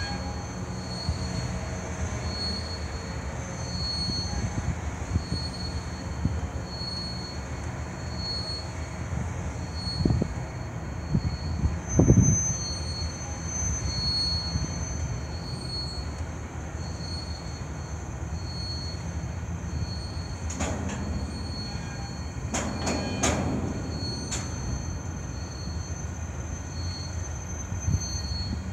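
CN freight train of covered hopper cars rolling past: steady rumble of steel wheels on rail, with a high wheel squeal pulsing about once a second. A couple of louder clunks come about ten and twelve seconds in, and sharp clicks about twenty to twenty-four seconds in.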